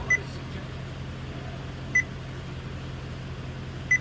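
Car's electronic warning chime: a short high beep repeating about every two seconds, three times, over a steady low hum.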